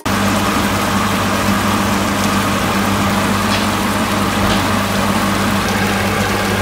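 Chicken pieces and teriyaki sauce sizzling in a frying pan: a steady hiss with a few faint pops, over a constant low hum.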